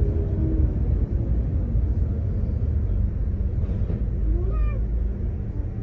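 Steady low rumble of a road vehicle in motion, with one short cry about four and a half seconds in that rises and then falls in pitch.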